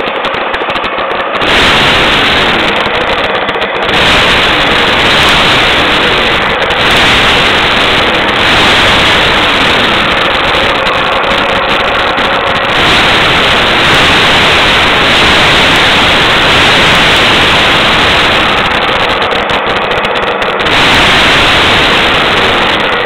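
Kawasaki KH350 air-cooled two-stroke three-cylinder engine running loud and crackly through aftermarket silencers, its revs raised and let fall back several times.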